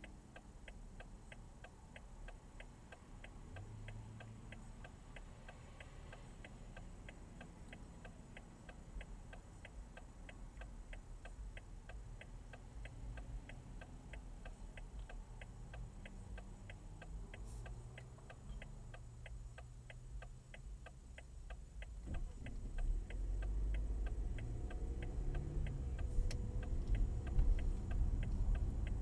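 A car's turn-signal indicator ticking in a quick, even rhythm. About 22 seconds in, engine and road noise rise as the car pulls away and accelerates, and the ticking fades under it.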